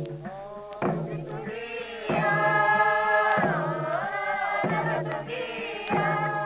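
Traditional Papua New Guinea village group singing: several voices chanting in unison on long held notes, with a falling glide in the middle, in repeated phrases that begin about every second and a quarter.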